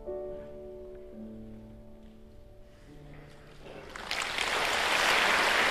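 Grand piano playing the last few slow, sustained notes of a song's closing bars, dying away; about four seconds in, audience applause breaks out and quickly becomes loud.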